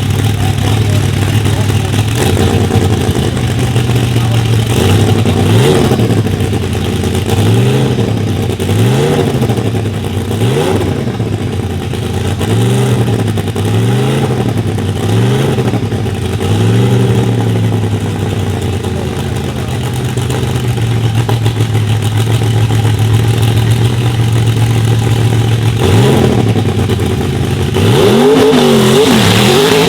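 Sauber Mercedes C9's turbocharged 5.0-litre V8 idling, with a string of quick throttle blips, each rev rising and falling in about a second. It settles to a steady idle, then is revved again near the end.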